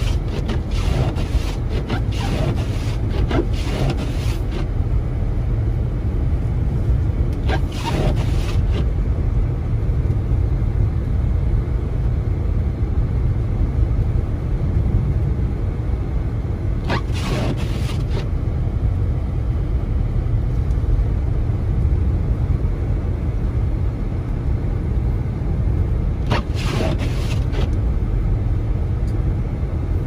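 Steady low rumble of tyre and road noise inside a car's cabin while driving on a snow-covered road. Windshield wipers swish across the glass several times in the first few seconds, then about once every nine seconds.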